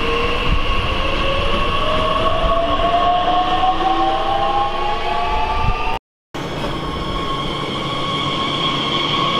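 Bombardier Talent 2 electric multiple unit pulling away, the whine of its traction drive rising steadily in pitch as it gathers speed, with rail noise underneath. After a sudden cut about six seconds in, a second electric train gives a steady electrical whine.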